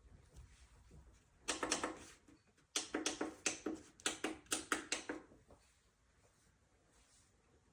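A run of sharp clicks and knocks in two bursts, a short one about a second and a half in and a longer, rapid one from about three seconds to five.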